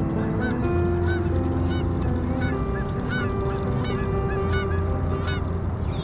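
A flock of geese honking, many short calls overlapping and repeating, over a steady low hum.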